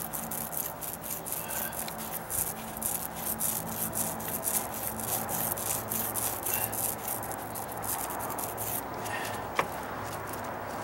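Mini paint roller rolling wet primer onto a wooden deck stair, making a fine, sticky crackle with each stroke over a steady low hum. A single sharp click comes near the end.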